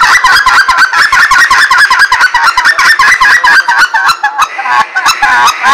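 Red Ketner short-reed goose call blown in a fast chatter of short goose clucks and honks, about eight notes a second, easing into slower single notes near the end. This fast run is the cadence the caller calls a 'scratch'.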